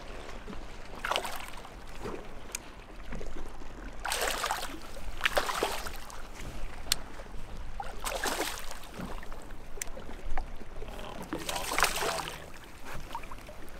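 Hooked smallmouth bass thrashing and splashing at the water surface beside the boat, in about four bursts a few seconds apart.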